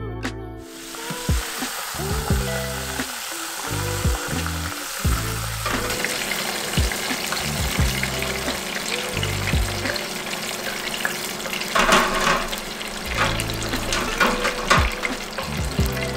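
Dredged turkey tenders deep-frying in hot oil: a steady sizzle with scattered crackles, starting just under a second in, with background music underneath.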